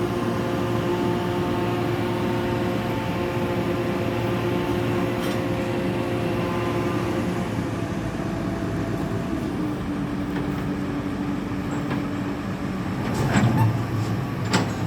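A mobile crane's diesel engine running steadily under work. Its tone drops a little about ten seconds in, and a few sharp knocks come near the end.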